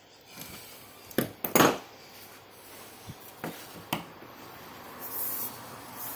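Handling knocks and clicks from a plastic tap fitting and tools against a hollow plastic storage tub: a few sharp knocks with a short clatter about one and a half seconds in, then single lighter clicks and a brief scraping rustle near the end.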